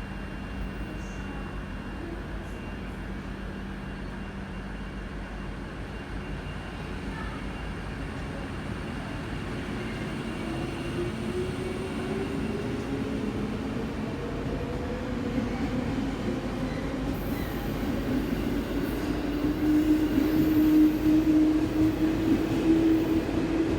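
Running sound of a JR 651 series 1000 electric multiple unit, its thyristor phase-controlled traction equipment and motors under way. A motor whine climbs in pitch from about ten seconds in, and the running noise grows steadily louder, with a strong steady whine near the end.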